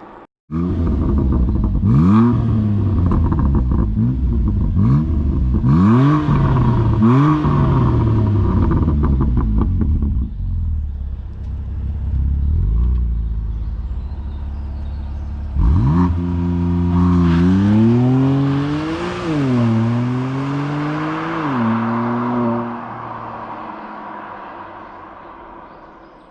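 BMW M4 Competition's twin-turbo 3.0-litre inline-six, through its sport exhaust, revved in a series of short blips with crackling as the revs fall. After a few seconds of lower, steady running it accelerates hard, the pitch climbing and dropping at a gear change, then fades away.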